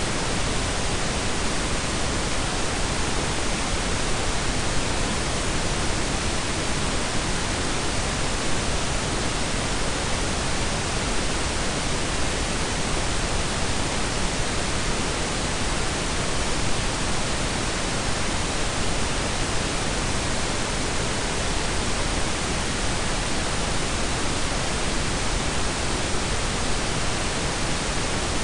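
Steady synthetic blend of pink and brown noise: an even, unchanging hiss and rumble with no events or tones.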